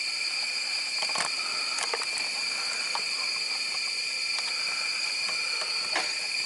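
Shop air hissing steadily through a cylinder leakage tester into a Kohler engine cylinder, with a steady high whistle in the hiss. The tester reads 100% leakage: with the piston off top dead center, the air is escaping straight through the cylinder. A few faint clicks are heard, one about a second in and another near the end.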